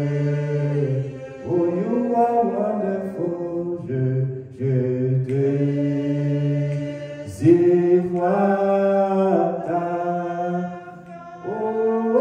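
Slow hymn singing, with voices holding long notes of a second or two each and short breaks between phrases.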